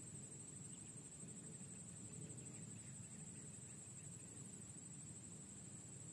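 Near silence at a swamp at dusk: a faint, steady high-pitched insect trill with a soft low background hum.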